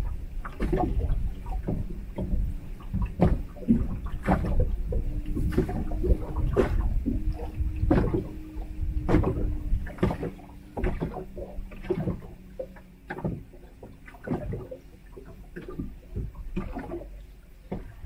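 Irregular knocks and taps in a small inflatable PVC fishing boat, over a steady low rumble, with a faint steady hum for a few seconds in the middle.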